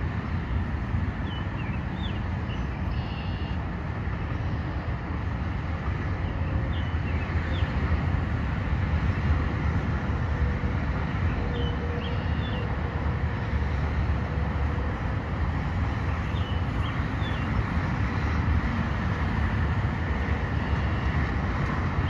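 Steady highway traffic noise from passing cars and trucks, with a short burst of high chirps from a small bird about every five seconds.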